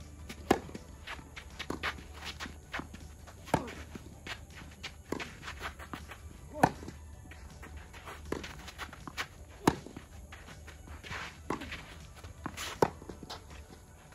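Tennis rackets striking the ball in a singles rally: a serve about half a second in, then hits going back and forth, the loudest about every three seconds with softer ones from the far end in between. Players' footsteps and shoe scuffs on the court come between the shots.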